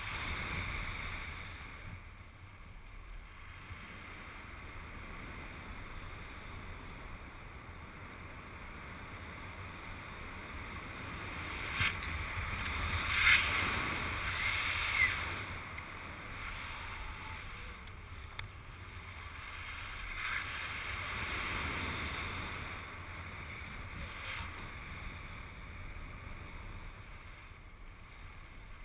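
Wind rushing over the camera microphone during a parachute descent under canopy. It swells twice and eases off, with a few short sharp knocks or flaps.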